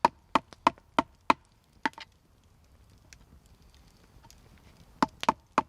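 Knife blade clicking against a tin can in quick, even strokes, about three to four a second, each with a short metallic ring. The strokes stop about two seconds in and start again near the end.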